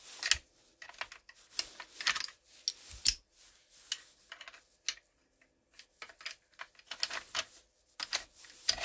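Steel parts of a Romanian Draco AK-47 pistol being handled and fitted into the receiver during reassembly: scattered metallic clicks and scrapes, with one sharp click about three seconds in and a short lull a little past the middle.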